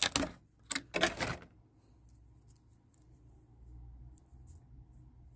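Doll packaging being handled as the doll is taken out of its box: sharp plastic and cardboard clicks and rustles in the first second and a half, then faint scattered handling ticks.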